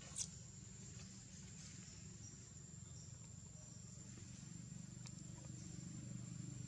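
Quiet forest ambience: a steady high-pitched insect drone over a low hum, with one brief sharp high chirp just after the start and a few faint ticks later.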